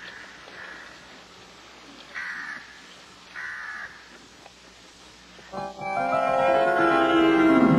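Three short bird calls, each about half a second long, over a quiet background; then, about two seconds before the end, loud music comes in with a sustained chord of many held notes.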